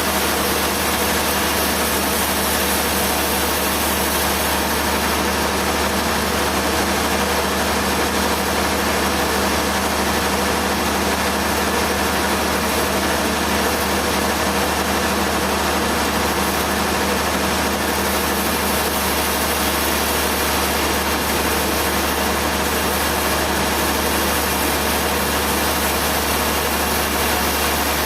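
An engine running steadily at one constant speed, with a low hum and no revving or change.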